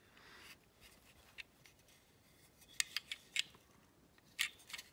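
Fingers handling a small die-cast toy truck close to the microphone: a soft rub at the start, then a scattered handful of small, sharp clicks of plastic and metal parts.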